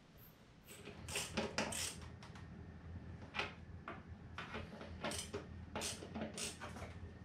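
Screwdriver turning a tight screw into the plastic and foam of an RC plane's fuselage: a run of short, irregular creaks and clicks beginning about a second in.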